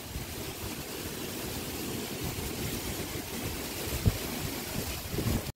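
Outdoor background noise: a steady hiss under an irregular low rumble, with a single bump about four seconds in.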